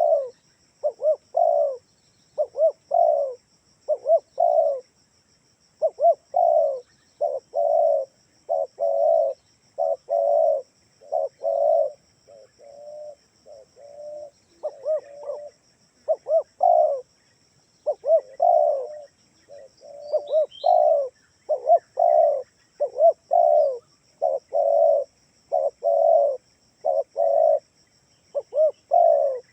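Spotted dove (tekukur) cooing over and over: short low hooting coos in quick groups with brief gaps, softer for a few seconds around the middle.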